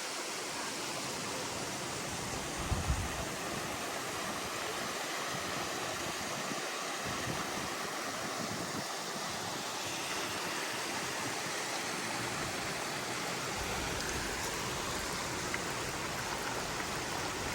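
Steady rushing of water from a mountain waterfall and spring stream, an even hiss-like roar without a break. A few brief low bumps come about three seconds in.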